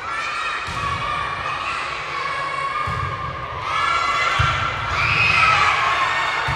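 Indoor volleyball match in a large gym hall: several dull thuds of the ball, with a few drawn-out high-pitched squeaks or calls over the general noise of players and spectators.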